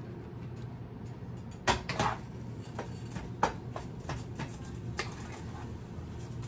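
A spatula stirring food in a nonstick skillet, scraping and knocking against the pan. There are several sharp clacks, the loudest just under two seconds in and again at about three and a half seconds, over a steady low hum.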